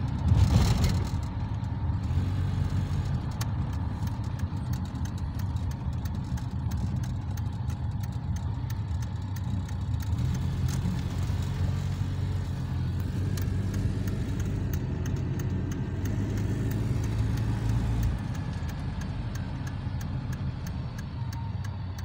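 Car engine and road noise heard from inside the cabin of a moving car, a steady low drone. A short loud thump comes about half a second in.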